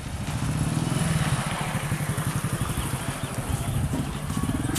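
A small engine running with a rapid, steady throb.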